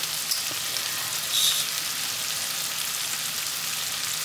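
Diced seasoned chicken sizzling in a frying pan: a steady hiss, with a few faint crackles and one brief louder pop about a second and a half in.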